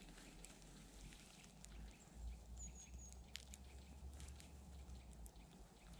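Near silence: faint outdoor ambience with a low rumble, a few faint scattered ticks and one brief high chirp a little before the middle.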